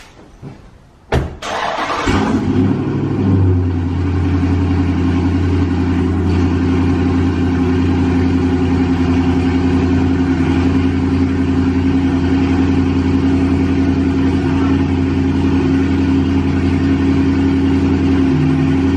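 A car door shuts about a second in, then a Dodge Charger's 392 Hemi V8 starts, climbs briefly and settles into a loud, steady idle.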